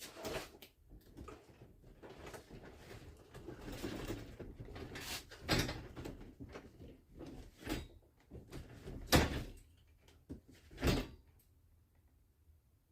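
A garage door being worked by hand, rattling and scraping, with three loud bangs about five, nine and eleven seconds in, before it goes quiet near the end.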